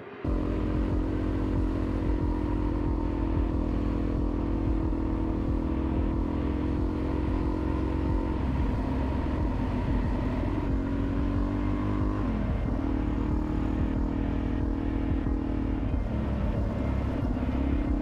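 Suzuki DR-Z400E single-cylinder four-stroke dirt bike engine running under way, heard from on the bike; its note drops and climbs again a few times.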